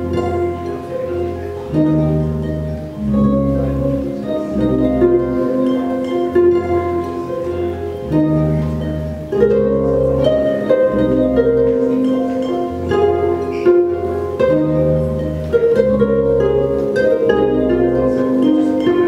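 Lyon and Healy concert grand pedal harp played live through effects: plucked notes and arpeggios ringing over low bass notes that change every second or two.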